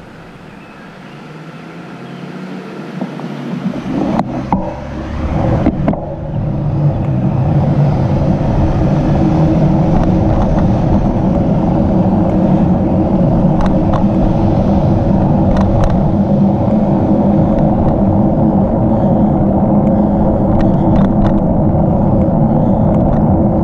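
Wind and tyre noise from a bicycle ride on a paved road, heard on the bike-mounted camera's microphone: it builds over the first several seconds as the bike gets rolling, then holds steady and loud. A few short clicks and knocks come around four to six seconds in and now and then later.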